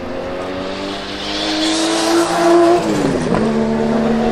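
The 1977 Porsche 935/2.0 'Baby' race car's 1.4-litre single-turbo flat-six drives past at an unhurried pace. Its engine note climbs slightly as it approaches, drops in pitch as the car goes by about three seconds in, then carries on steady as it moves away.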